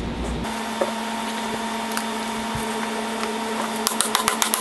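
A light mallet tapping a side bracket extrusion onto the edge of a golf cart windshield: quick, even taps, about seven a second, starting near the end. A steady hum runs underneath.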